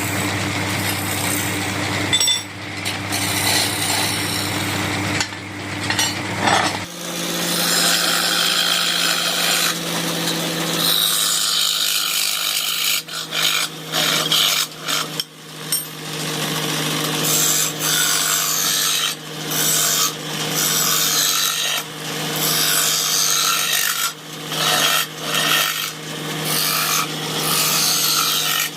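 A power tool's motor runs steadily while wood is cut and sanded against it, with a rough rasping scrape that breaks off and resumes many times. The motor's pitch steps up about seven seconds in.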